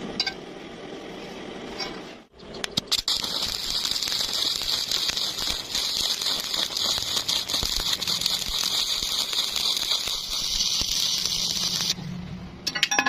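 Electric arc welding on sheet metal: the arc strikes with a few sharp crackles about two and a half seconds in, then burns with a steady, crackling hiss until it stops suddenly about twelve seconds in.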